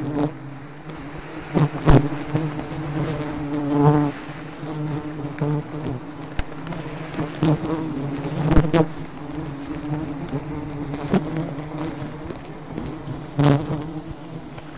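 Dense, steady buzzing of a wild honeybee colony clustered on an open comb on a branch. The buzz swells louder now and then, and a few sharp clicks break through.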